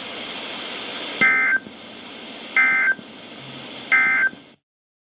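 Emergency Alert System end-of-message data bursts from NOAA Weather Radio: three short, shrill, buzzy bursts about 1.35 s apart over a steady radio hiss. They mark the end of the severe thunderstorm warning broadcast. The hiss cuts off abruptly near the end.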